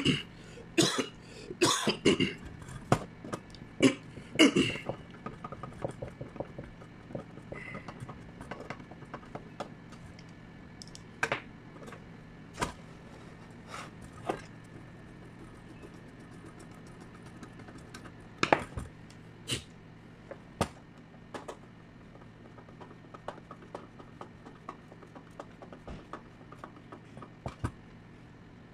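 Hand work on a stage lamp's metal chassis with a screwdriver: a quick run of sharp clicks and knocks in the first five seconds, then single clicks every few seconds as parts and tool are handled.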